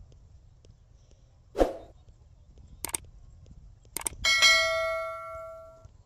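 Subscribe-button sound effect: a short burst, two mouse clicks, then a bell notification chime ringing out and fading over about a second and a half. Faint hoofsteps of the ploughing bullocks sound underneath.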